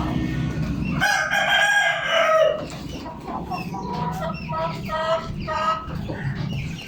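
A bird's long, loud call with a falling end, followed by a run of shorter repeated calls.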